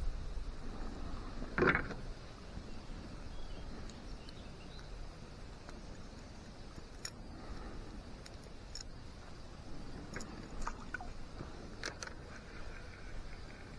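Faint steady outdoor background noise with scattered small clicks and a louder short knock about two seconds in.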